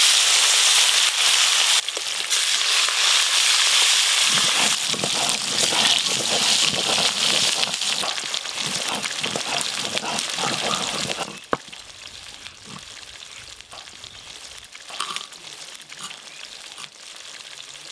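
Katla fish pieces coated in salt and turmeric frying in hot mustard oil in a karahi, a loud, steady sizzle full of crackles. About eleven seconds in the sizzle gives way to much quieter sounds with a single sharp click.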